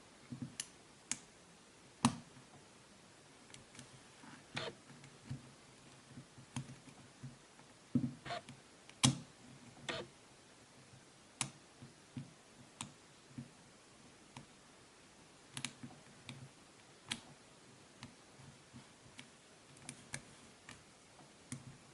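Lock pick and tension wrench working the pin stack of an old EVVA padlock: irregular sharp metallic clicks, a few louder ones about 2 and 9 seconds in.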